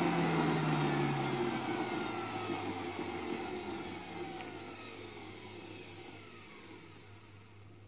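Paul Mixi 2000's electric motor winding down after being switched off, its whine falling in pitch and fading away over several seconds.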